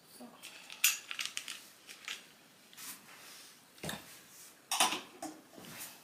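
Light clicks, clinks and knocks at irregular intervals as floating-shelf parts and hardware are handled. There is no drill running.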